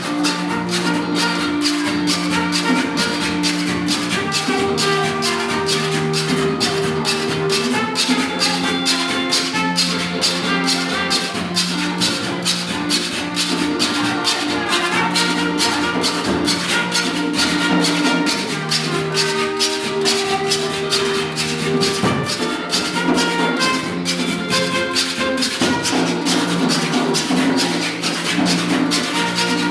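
Rake 'n' scrape band playing: a fast, even scraping rhythm, typically a carpenter's saw scraped with a metal tool, over held pitched notes.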